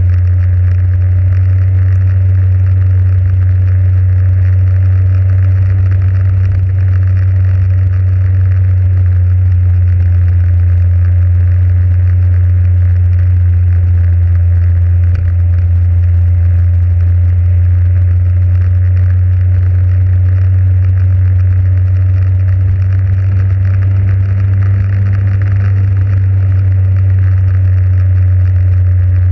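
Motorcycle engine running steadily at cruising speed: a loud, even low drone that holds without change.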